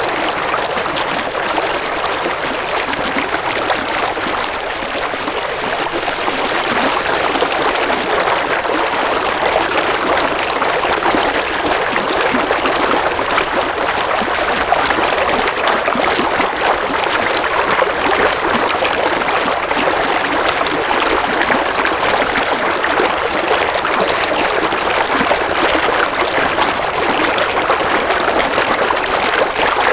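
A small stream flowing steadily, its water trickling and splashing over stones.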